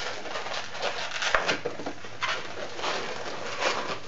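A half-inflated 260 latex modelling balloon squeaking and rubbing in a run of short squeaks as it is bent and twisted into small loops.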